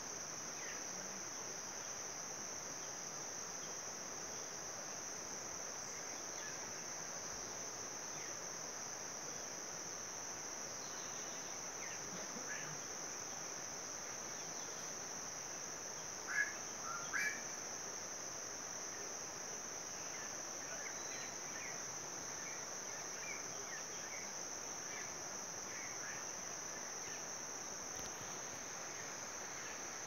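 Insects shrilling in one unbroken high-pitched drone. A few short, sharp chirps cut in about halfway through and are the loudest sounds.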